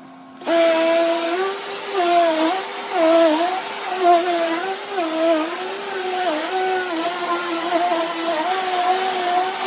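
Upright vacuum cleaner switched on about half a second in and then running with a steady motor whine, its pitch dipping briefly and recovering again and again.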